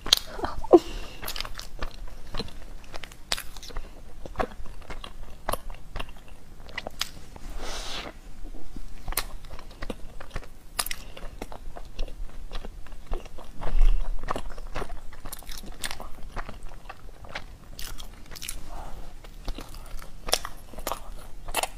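Close-up eating sounds: biting into and chewing soft chocolate-filled bread with a sticky chocolate coating, made up of many quick wet mouth clicks. There is one louder soft thump partway through.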